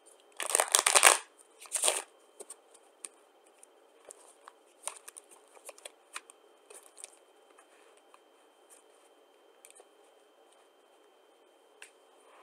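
Riffle shuffle of a deck of cardstock game cards made from UNO cards: a long fast riffle about half a second in and a shorter one near two seconds. After that come scattered light clicks and taps as the cards are squared into stacks and handled.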